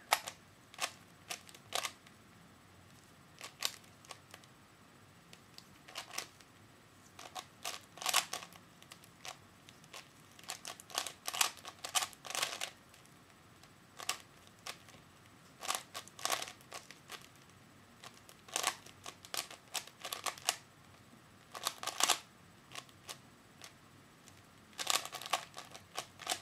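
3x3 Rubik's Cube being turned quickly in a speedsolve: irregular bursts of plastic layer-turning clicks and clacks, in clusters separated by short pauses.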